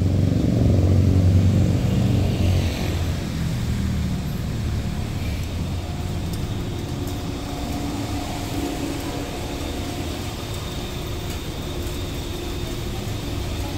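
A car engine running with a steady low hum. It is a little louder in the first couple of seconds, then settles.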